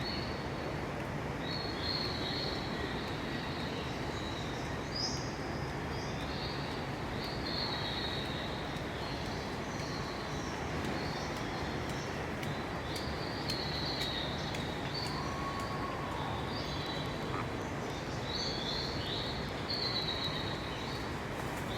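Birds chirping in short high calls, again and again, over a steady rushing background noise.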